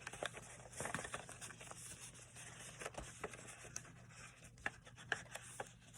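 Faint paper rustling and scraping with a few light taps: a handmade paper card being slid into a paper envelope.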